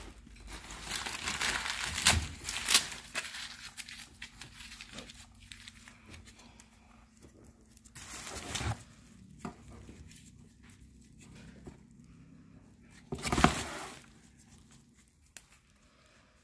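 Bubble wrap and packing material crinkling and rustling in a cardboard box as a cast-iron toy cannon is handled. There are a couple of sharp clicks about two to three seconds in, and a louder rustle near the end.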